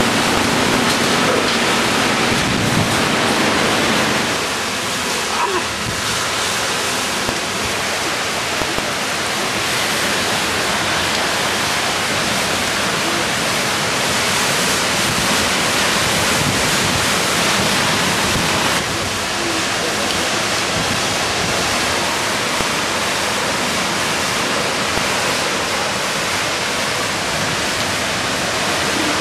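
Hurricane wind and heavy rain, a loud steady rushing noise with no distinct events.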